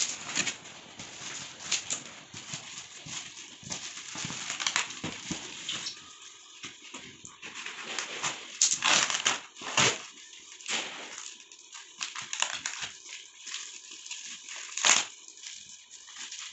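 Corrugated cardboard box flaps and packing tape being torn open by hand, with plastic wrap crinkling: irregular ripping and rustling, with louder rips about nine seconds in and near the end.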